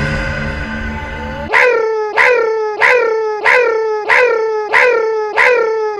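A short pitched animal cry, repeated seven times about every two-thirds of a second like a looped sound effect, each copy starting sharply and sliding down in pitch. Before it, about a second and a half of steady held tones.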